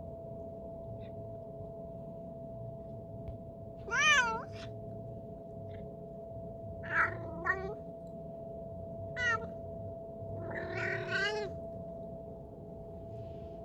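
A domestic cat meowing oddly while unwell: one loud call about four seconds in, two short ones near the middle, a brief one after, and a longer, wavering call near the end. A steady hum runs underneath.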